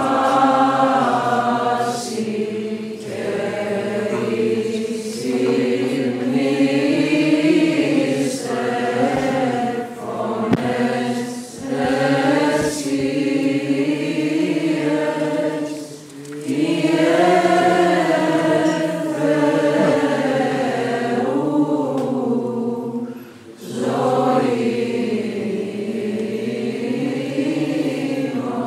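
Byzantine chant of an Orthodox vespers service: voices singing a slow, drawn-out hymn in long held and gliding notes over a steady low drone, with two brief breaks between phrases.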